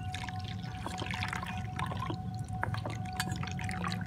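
Milk pouring and splashing from a steel mug into semolina in a steel bowl, with a spoon clicking against the bowl as the mixture is stirred. A faint steady hum sits underneath.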